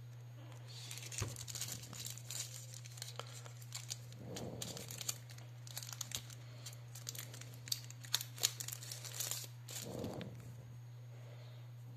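Thin plastic bag crinkling and crackling in a rapid, uneven run as a small phone battery is unwrapped from it, with a couple of soft handling bumps.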